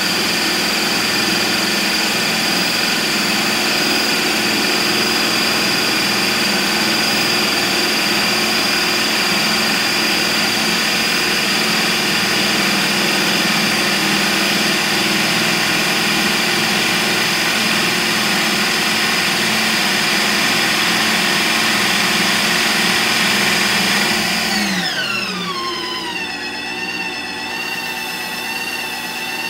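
Ninja Creami ice cream maker's motor running steadily with a high whine as its paddle spins through a frozen pint of pineapple. About 25 seconds in the pitch falls quickly as the motor slows, and a quieter, lower hum carries on.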